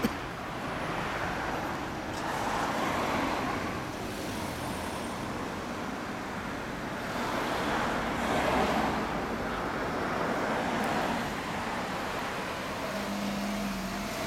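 Road traffic on the street: cars passing by, the noise swelling and fading twice.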